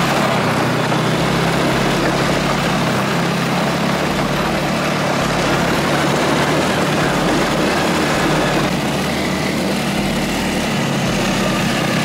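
Dune buggy engine running as it drives along, a steady low drone under an even rushing noise, heard from the seat of the open buggy.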